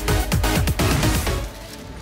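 Electronic dance music with a fast, regular thudding beat, which cuts out about one and a half seconds in, leaving a quieter low rumble.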